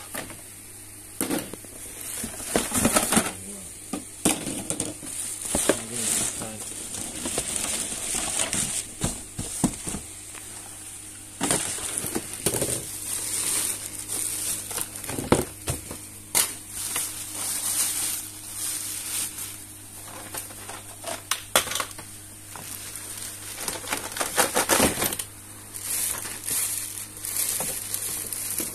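Clear plastic bag crinkling and rustling as a plastic basket is handled in a cardboard box, with scattered sharp knocks and crackles of plastic and cardboard. A faint steady low hum runs underneath.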